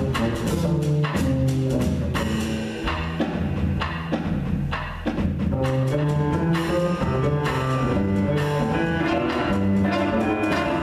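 A jazz group playing: walking bass line under a drum kit with cymbal strokes and melody instruments on top.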